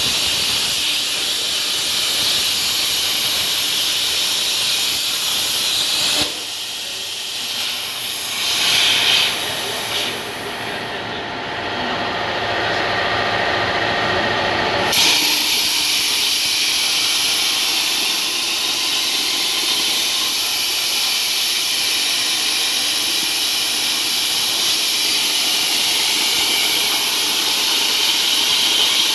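CNC plasma torch cutting 2 mm sheet steel with a loud, steady hiss. The hiss stops about six seconds in and is replaced by a quieter, duller sound with a couple of brief swells. It starts again abruptly about halfway through and then runs steadily.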